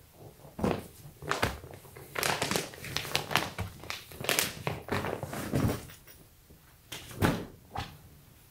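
Clear plastic comforter bag crinkling and the bedding inside rustling as it is handled and pressed down, in a series of short irregular rustles with soft thumps.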